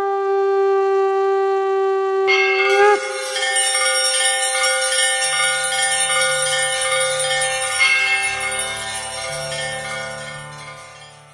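A conch shell blown in one long held note that bends and breaks off about three seconds in. Temple bells start clanging as it ends and keep ringing in a dense wash, fading out near the end.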